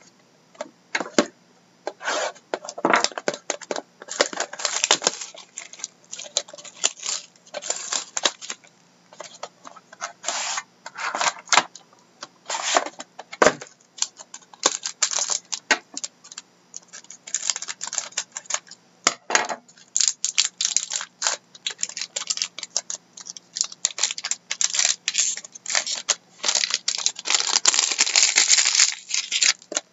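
A box of hockey trading cards being opened and sorted by hand: packaging crackles and tears, and cards are shuffled and clicked against each other. The sound comes in irregular spurts with short pauses, busiest near the end, over a faint steady hum.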